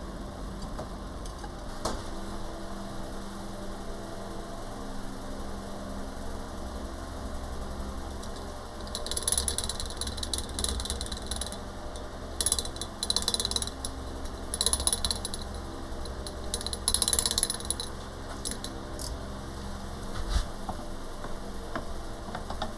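Metal tools and motorcycle fork parts clinking and rattling in several short bouts through the middle, over a steady low hum, with a couple of single knocks.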